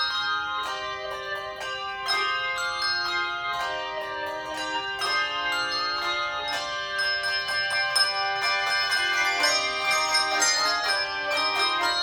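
Handbell choir playing a piece: many tuned handbells rung in chords and running notes, each note ringing on and overlapping the next.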